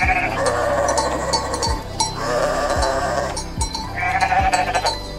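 A sheep bleating about four times in a row, each a long call of a second or more. Background music with a steady low beat runs underneath.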